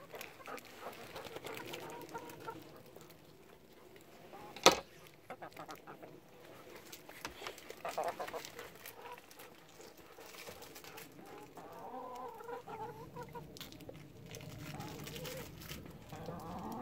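Brown hens clucking on and off, with one sharp click about five seconds in.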